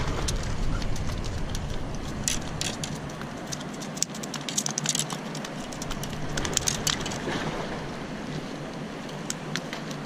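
Freshly caught skipjack herring flopping on concrete, a run of irregular slaps and taps.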